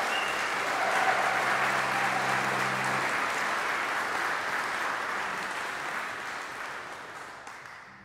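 Audience applauding, the clapping dying away over the last three seconds.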